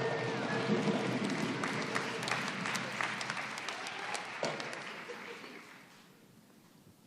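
Audience applauding, the clapping fading away about five to six seconds in.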